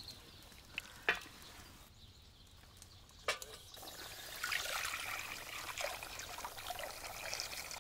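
Water pouring from a plastic jug into a cast iron pot, starting about four seconds in and running on steadily. Before it there are two short knocks.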